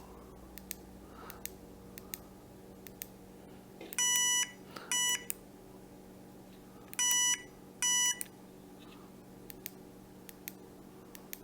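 Beeper of a GOTINSN bike turn-signal light sounding two pairs of short electronic beeps about three seconds apart, each beep a steady pitch. Faint clicks are heard between them.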